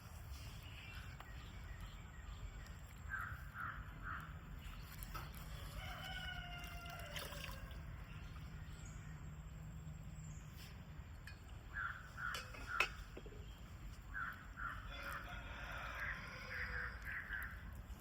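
Chickens clucking in short runs of calls, with a rooster crowing once about six seconds in. There is a sharp click near the thirteen-second mark.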